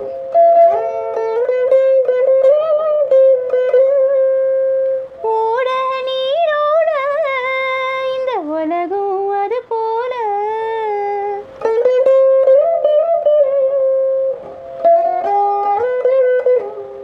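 Veena playing a melody: plucked notes in phrases, with pitch slides and wavering bends between them.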